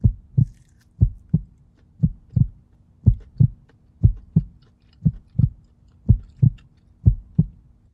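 Heartbeat sound effect for suspense: eight slow double thumps, about one pair a second, over a faint steady hum.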